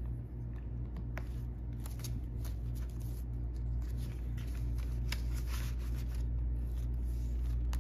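Paper banknotes rustling and crinkling in a run of short, crisp handling sounds as bills are counted and slipped into a clear plastic binder pocket, over a steady low hum.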